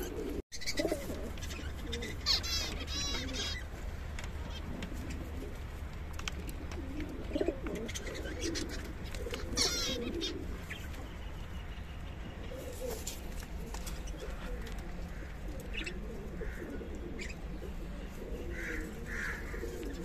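Domestic pigeons cooing in a loft, with two short bursts of quick high chirping from small cage birds, about two seconds in and again near ten seconds.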